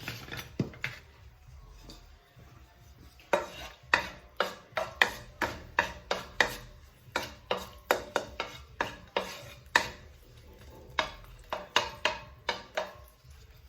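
Kitchen utensils knocking and clinking: a few light knocks, then from a few seconds in a long run of sharp strikes with a short ring, about two a second, during cooking prep.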